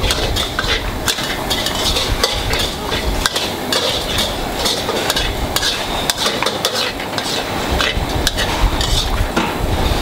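Metal ladle stirring and scooping in an aluminium pot of boiling soup, with repeated clinks against the pot over a steady bubbling hiss.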